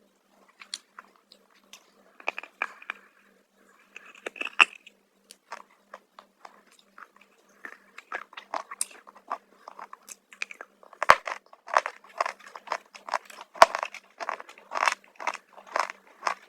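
Close-miked chewing of crunchy black chips: scattered crackles at first, then a steady run of crisp bites and crunches, nearly two a second, from about two-thirds of the way in.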